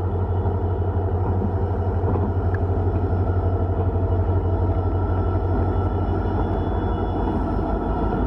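Indian Railways WDG-4 diesel locomotive's 16-cylinder EMD two-stroke engine running as it hauls a tank-wagon freight train past. A deep, steady engine drone that grows a little louder as the locomotive nears, about halfway through.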